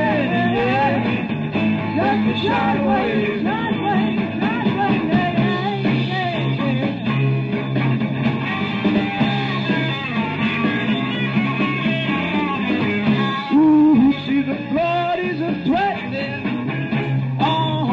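A rock band song with a lead singer, playing without a break.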